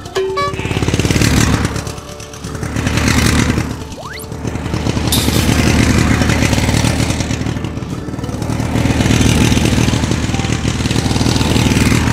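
A children's electric ride-on toy motorcycle playing its simulated engine-revving sound through its speaker as the throttle is worked. It swells and falls in a few surges, then holds up for the second half.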